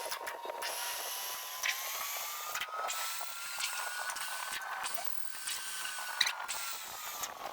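Metal lathe running during a thread repair: a whine that slowly rises in pitch, holds, then falls back near the end, over a hiss, with a few scattered clicks.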